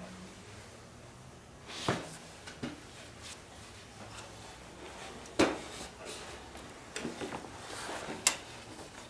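Scattered knocks and clicks of parts and tools being handled, with the loudest two knocks about halfway through and near the end and a short flurry of clicks just before.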